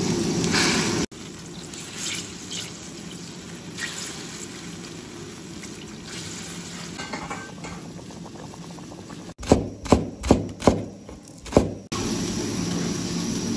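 Spicy broth boiling in a wok, with small wet splashes and drips as raw fish slices are slipped in one at a time. Near the end there are five sharp knocks in quick succession, then the steady boiling hiss returns.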